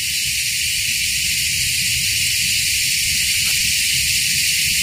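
Steady, loud high-pitched hiss of a tropical insect chorus, with a low rumble underneath and a faint click about three and a half seconds in.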